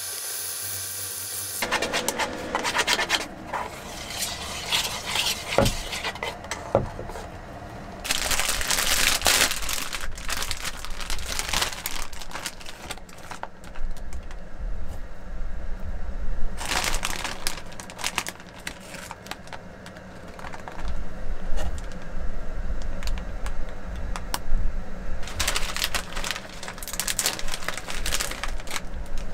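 Plastic bags rustling and crinkling in several bursts as shredded cabbage and tempura scraps are tipped out, between them chopsticks clicking and scraping against a metal mug as okonomiyaki batter is stirred.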